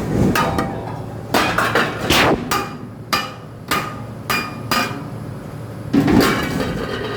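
About a dozen irregular metallic clanks and knocks, each with a short ring, as hard metal objects strike one another.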